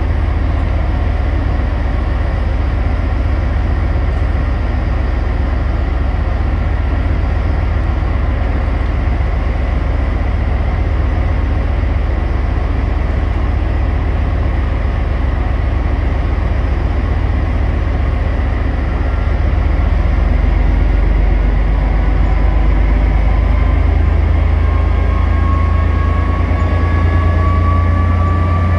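FS D.445 diesel locomotive's engine running with a deep, steady rumble as it draws a regional train slowly along the platform. It grows louder about two-thirds of the way through, and a faint whine rises slowly in pitch near the end.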